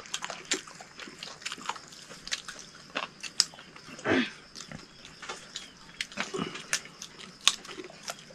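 Eating sounds: chewing, lip smacks and small wet clicks from people eating by hand. About four seconds in there is one short, louder cry or grunt that falls in pitch.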